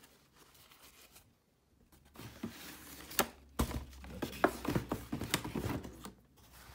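Tissue paper rustling and a cardboard shoe box being handled as a pair of knit sneakers is lifted out, with several sharp taps and knocks among the rustling from about two seconds in.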